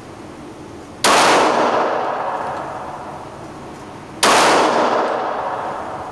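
Two shots from a Glock pistol in .40 S&W, about three seconds apart, each sharp crack dying away slowly over the next few seconds.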